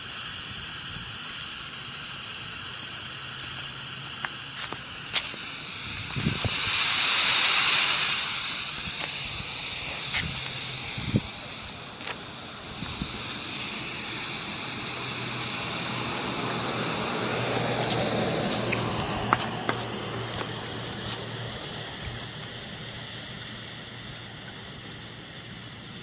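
Black Cat Camo Smoke canister hissing steadily as it vents its smoke, swelling louder for about two seconds some six seconds in.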